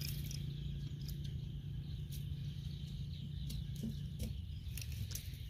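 Faint, scattered clicks of a cast net's metal chain weights being handled as the net is picked through. A steady low hum runs underneath and stops about four seconds in.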